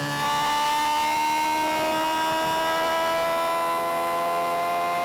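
Suzuki GSX-R 750's inline-four engine, getting louder as the throttle opens just after the start, then pulling with its pitch climbing slowly and steadily as the revs rise.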